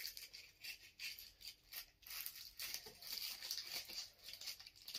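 Scissors cutting open a thin plastic mailer bag: faint, irregular crisp snips with the plastic crinkling.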